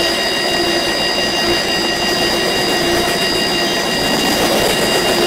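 Loaded coal train's hopper cars rolling past close by: a steady, loud noise of steel wheels on rail, with a faint tone that comes and goes.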